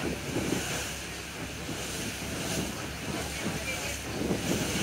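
Wind gusting on the microphone over the wash of sea water, an uneven rushing noise that swells and eases.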